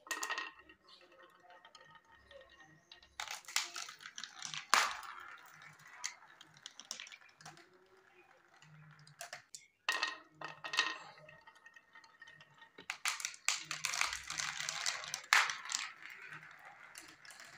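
Small marbles rolling and clattering down a plastic building-block marble run, in several bursts of quick rattling clicks with a light ringing as they knock along the curved track pieces and tubes.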